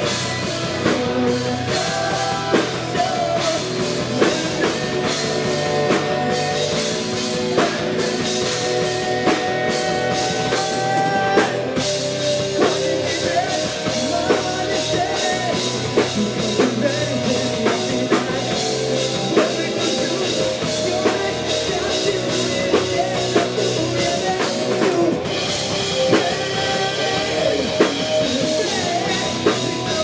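A live rock band playing: drum kit, bass guitar, electric guitar and synth keyboards, with a singer's voice over the music.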